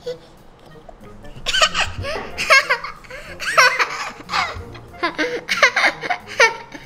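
A baby girl laughing in a string of short, high giggles from about a second and a half in until near the end, over background music.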